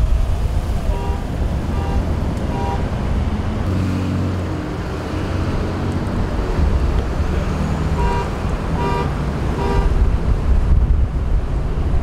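Wind buffeting the microphone over road traffic at an intersection, with a vehicle engine passing about four seconds in. Two sets of three short electronic beeps, evenly spaced, come about a second in and again about eight seconds in.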